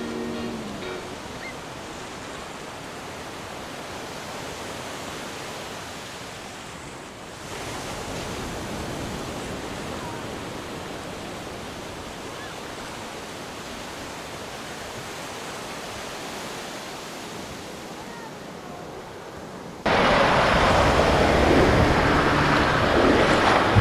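Ocean surf washing steadily, with the last notes of ukulele music fading at the start. About twenty seconds in, a much louder rushing noise cuts in abruptly.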